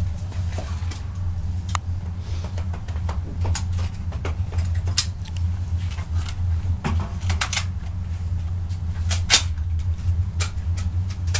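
Scattered clicks and clacks of a rifle and gear being handled during the make-ready, the loudest a sharp click about nine seconds in, over a steady low hum.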